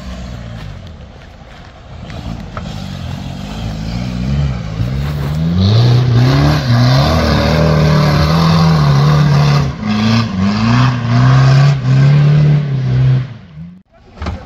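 Off-road trial vehicle's engine revving hard again and again under load as it climbs, its pitch rising and falling. It builds from about two seconds in, is loudest from about six seconds in, and drops out abruptly near the end.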